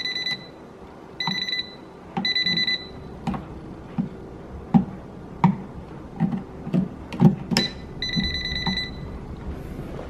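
Klein Tools non-contact voltage tester beeping in short bursts of rapid high-pitched beeps, four times, its red light showing it detects live voltage at the wall light switch. Between the bursts come a series of short clicks and light knocks.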